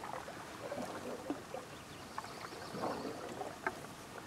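Faint water sounds around a canoe on a calm lake: small drips and laps against the hull, with a few light scattered ticks.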